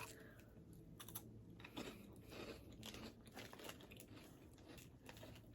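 Faint crunching of a chocolate wafer cookie being bitten and chewed, in scattered short crackles.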